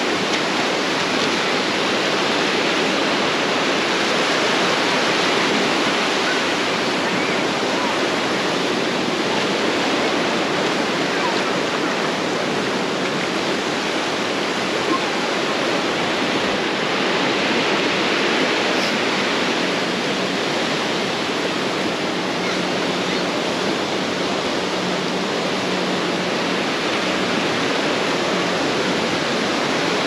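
Steady rush of surf washing onto a sandy beach, swelling a little now and then.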